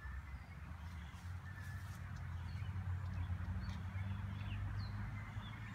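Scattered short bird chirps over a low, steady rumble.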